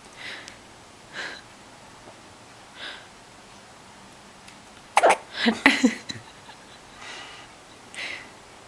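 A baby hiccupping: short breathy hiccups every second or two, with a louder run of several quick sounds about five seconds in.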